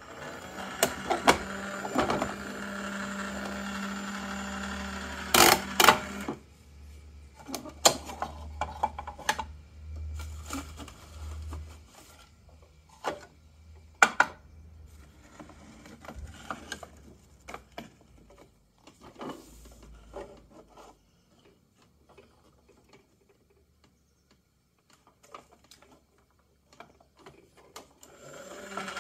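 Battery-operated toy garbage truck giving a steady mechanical hum with a low tone for about six seconds, cut by a few sharp clicks. After it stops, scattered clicks and knocks of hard plastic parts being handled, growing sparse and faint, until a similar hum starts again at the very end.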